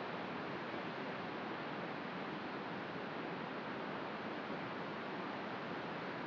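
Helmcken Falls, a high plunge waterfall, pouring into its canyon: a steady, even rush of falling water.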